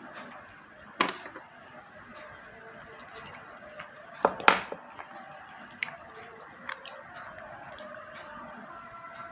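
Slate pencil being bitten and chewed: a sharp crunch about a second in, a louder double crunch just past four seconds, then softer crunching and small clicks.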